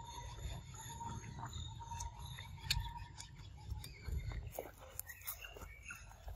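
Quiet outdoor forest background: a low rumble under faint, steady high tones that come and go, with a few soft clicks and taps.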